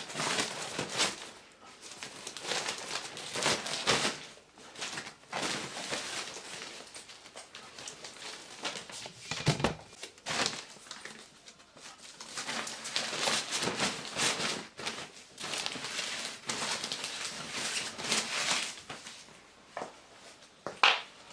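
Rustling, crinkling and light knocks of a foldable storage basket being handled, coming and going in irregular spells, with a sharper click near the end.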